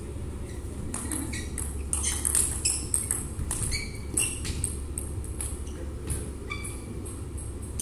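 Table tennis rally: the celluloid ball clicking quickly off rackets and table, about a second to three seconds in, then sports shoes squeaking sharply on the hall's rubber floor. A steady low hum of the hall runs underneath.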